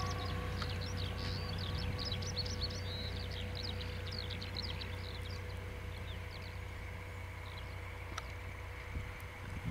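Small birds chirping busily, thinning out after the first few seconds, over the low steady rumble of a departing diesel-hauled passenger train.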